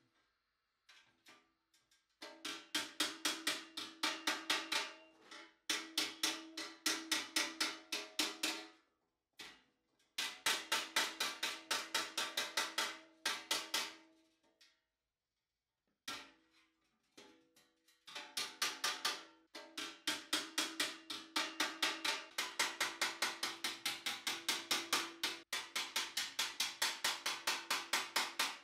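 Rapid, evenly paced metal-on-metal hammer blows, about four a second: a small hammer striking a larger hammer held as a set tool against a steel helmet face plate on a stake, each blow ringing. The blows come in runs of several seconds with short pauses between them.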